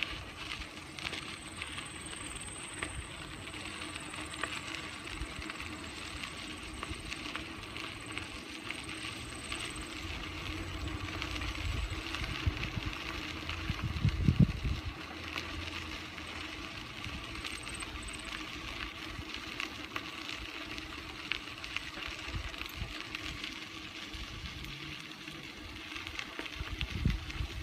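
Bicycle rolling along a crushed-stone trail: tyres crunching on the gravel with many small rattling clicks, and a louder low rumble about halfway through.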